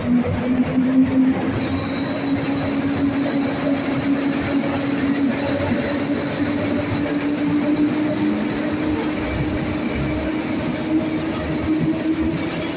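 EU07 electric locomotive and its passenger coaches rolling past and picking up speed. A steady motor hum rises slowly in pitch under the rumble of the wheels, and a thin high wheel squeal comes in about two seconds in and holds. The sound echoes in the underground station hall.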